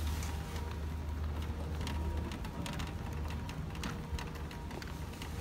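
Loaded airport luggage trolley rolling across a tiled floor, its wheels and frame rattling in many irregular small clicks, over a steady low rumble.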